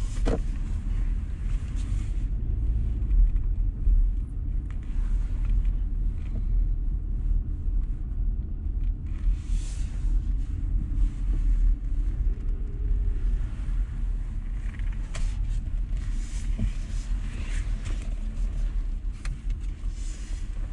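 Car engine and tyre rumble heard from inside the cabin while driving, a steady low drone with faint road hiss.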